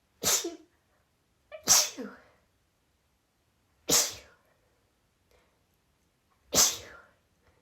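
A woman sneezing four times in a row as part of a sneezing fit, the sneezes coming one and a half to two and a half seconds apart.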